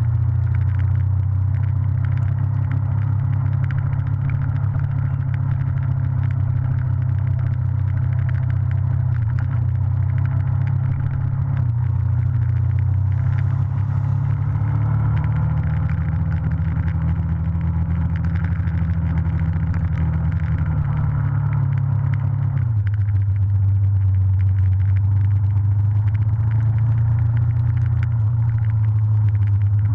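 Motorcycle engine running under way, heard from the handlebars. Its note rises slowly through the middle and drops suddenly about three-quarters of the way in.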